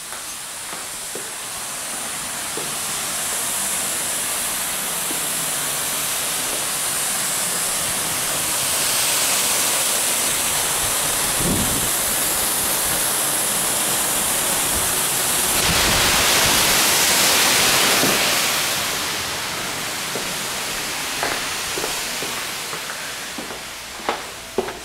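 A steady rushing hiss that swells twice in the middle, then a few footsteps on a hard floor near the end.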